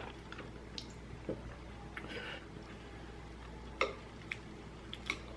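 Quiet eating sounds: chopsticks clicking against a bowl of noodle soup, with small wet squishing and chewing. A few sharp clicks are scattered through, the loudest about four seconds in.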